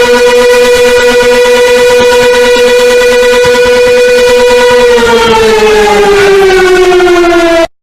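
Civil defense siren sounding a loud steady tone, then winding down in pitch from about five seconds in, and cutting off abruptly near the end.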